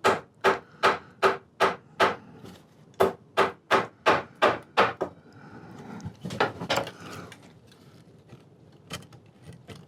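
Soft rawhide mallet striking the wooden chair frame, about a dozen quick blows at two to three a second, then a few lighter taps after a pause: knocking apart a chair joint whose old hide glue has dried.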